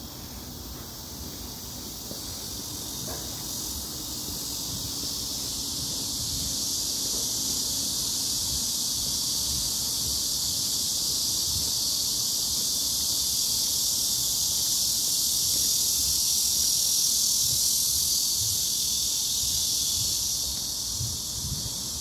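Chorus of cicadas: a steady, high-pitched drone that grows louder through the first half and drops slightly near the end, with a low wind rumble on the microphone.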